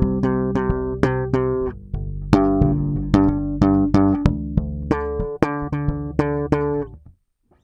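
SX electric bass with a Seymour Duncan Basslines SMB4D humbucker, plucked fingerstyle and recorded direct: a line of separate picked notes, two to three a second, that stops about seven seconds in.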